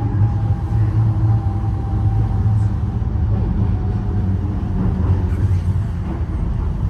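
Docklands Light Railway train running between stations, heard from inside the car: a loud, steady low drone and rumble with a fainter, steady motor whine above it, the 'very loud' noise that sounds like too much engine.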